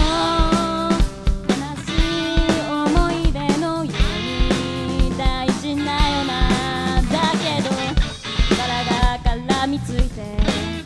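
Live rock band playing a song: a female singer's vocal over electric guitars, bass and a drum kit keeping a steady beat.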